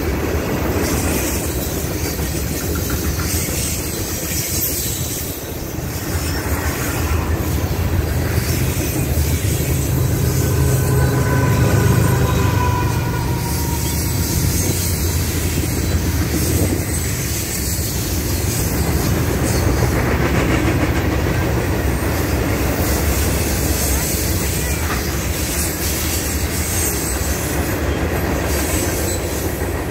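Freight train cars, covered hoppers and boxcars, rolling past with a steady rumble of steel wheels on the rails. A faint high wheel squeal comes in about ten seconds in and lasts a few seconds.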